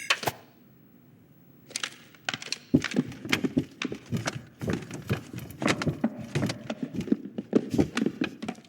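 A sharp click, then after a short pause a quick, irregular run of small clicks and knocks lasting several seconds.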